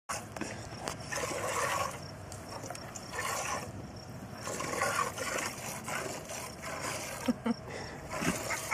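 Hand-milking a goat: milk streams squirting into a steel bowl in a run of short, hissing spurts.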